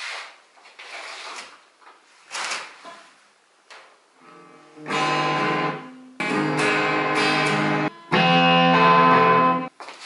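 Electric guitar played through a small Marshall practice amp. First come a few quiet, scratchy strums, then from about five seconds in three loud chords, each strummed and left ringing for about a second and a half.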